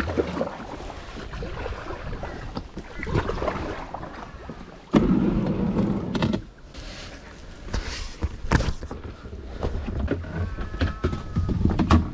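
Kayak paddle strokes: the blades dipping and splashing in the water with drips, coming in uneven surges, with a louder stretch about five seconds in.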